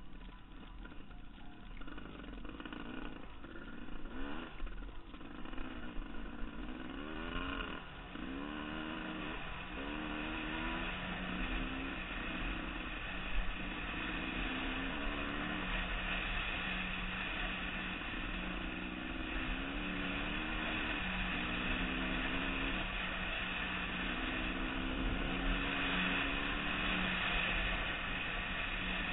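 Dirt bike engine heard from the rider's helmet camera, pulling up through the gears: the pitch climbs, drops at each shift and climbs again, over a steady rush of wind.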